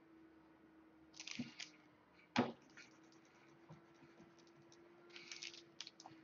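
Faint clicking of computer keyboard keys in short clusters, about a second in and again near the end, with one sharper click between them. A faint steady hum runs underneath.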